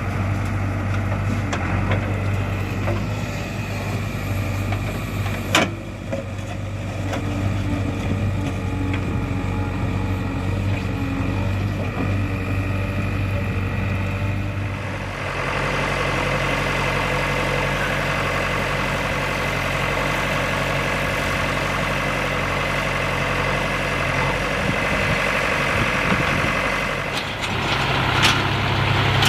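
Heavy diesel engine running steadily, with a single sharp click about five seconds in. About halfway, the engine's sound turns harder and brighter, as if it has come under load.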